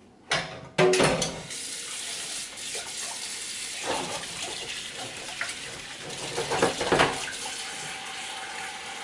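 Kitchen tap running into a stainless steel sink while dishes are washed, with a few sharp knocks and clatters. The loudest knocks come just after the water starts and again around the middle and near the end.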